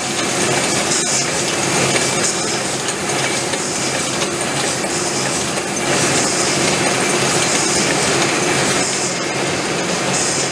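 Aluminium aerosol can production line running: steady machine noise with light metallic clinking of cans on the printing machine and pin-chain conveyor, and a hiss that swells every second or so.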